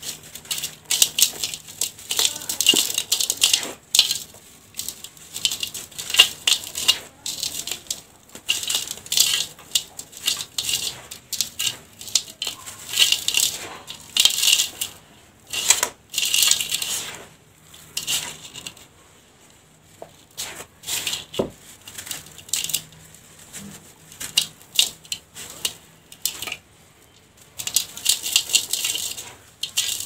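Dry, gritty sandy dirt being crumbled by hand in a steel tub, with grains sifting through the fingers. It makes crackling, crunching crumbles and a sandy hiss in repeated handfuls of about a second each, with a couple of short lulls.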